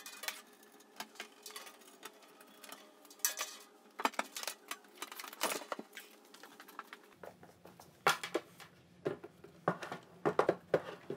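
Irregular light clicks and knocks of an electrical control cabinet being handled and set on a workbench, busier in the last few seconds.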